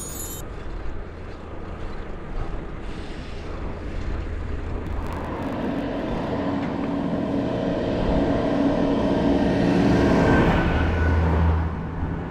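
An oncoming car approaches and drives past a moving bicycle. Its engine and tyre noise grow louder over several seconds, peak about ten seconds in and then fade, over steady wind and road rumble on the bike-mounted microphone.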